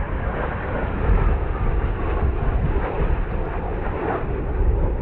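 Jet engines of a five-ship formation of KAI T-50B Golden Eagle jets, each with a single F404 turbofan, flying past: a steady rumble with a whine that falls slowly in pitch over the first couple of seconds.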